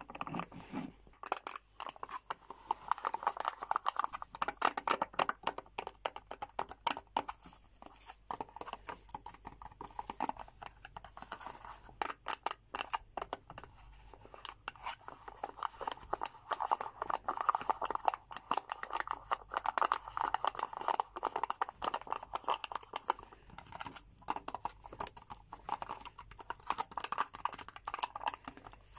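Fingernails tapping and scratching on thin plastic dessert cups and their foil lids, with the plastic crinkling as a cup is squeezed and turned in the hands. It comes as a dense run of quick little clicks and scratches.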